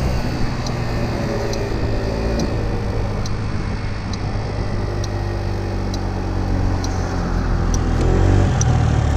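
Motor scooter's engine running at full throttle, around 30 mph, under wind and road noise, with a faint regular tick about once a second. Near the end the engine note dips briefly, then climbs again.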